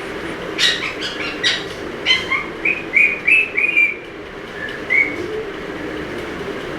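Indian ringneck parrot calling: a few short squawks, then a quick run of about six short chirps, and a single call about five seconds in.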